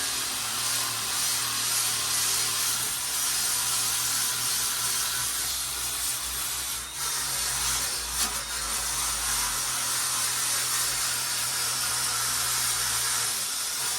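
Sandblaster hissing steadily as abrasive is blasted onto the splash guard to strip rust from the pitted steel.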